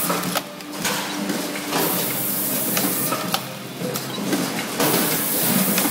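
Label applicator and conveyor of a candy packing line running: a steady mechanical whir and hiss with irregular clicks and knocks as labels are pressed onto plastic candy tubs.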